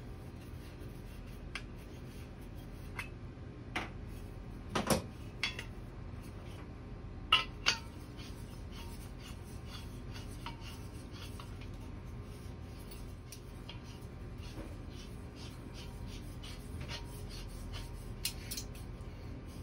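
Handling noise of a propane cylinder and torch: metal clinks, taps and light rubbing as the cap comes off the propane cylinder and the brass fitting of a Harbor Freight handheld propane torch is screwed onto the cylinder. A few louder knocks come about 5 and 7–8 seconds in, followed by a run of small ticks.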